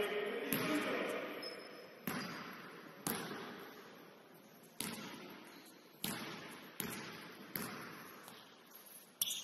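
Basketball bouncing on a gym floor: about nine bounces at uneven intervals, roughly a second apart, each echoing through the hall.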